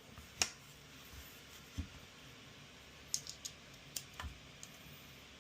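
Scattered light clicks and taps of small metal hardware being handled, as a screw is tried in an unthreaded steel graphics-card bracket.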